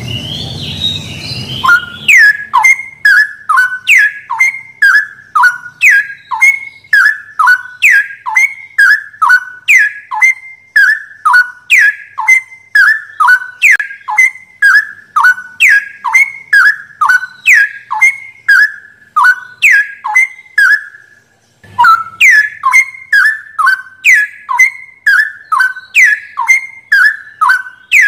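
Straw-headed bulbul (cucak rowo) song from a bird-tutoring recording. Loud, clear whistled notes, each falling sharply in pitch, repeat about three times a second and alternate between a higher and a lower note. They are broken by a short pause about 21 seconds in. Before the notes begin, about two seconds in, there is a low rumble with faint chirps.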